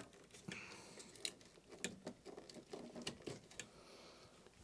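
Faint, scattered clicks and rustling of wires and plastic wire connectors being handled and worked loose, about half a dozen small clicks.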